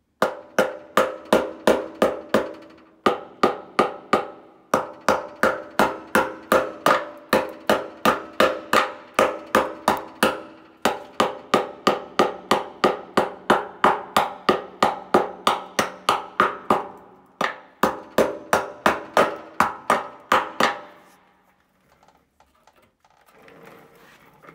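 Small hammer striking a Honda CBR 919RR's steel fuel tank, about three blows a second in runs with short breaks, each blow ringing through the tank. The blows knock loose the body filler packed over dents in the tank. The hammering stops near the end.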